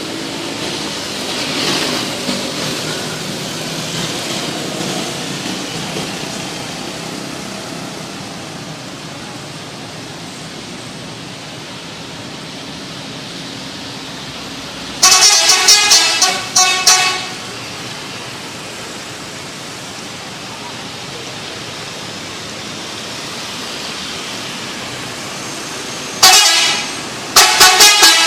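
Bus telolet horn, a multi-tone musical horn, sounding a quick run of short pulsing notes about halfway through and again near the end, over steady street noise.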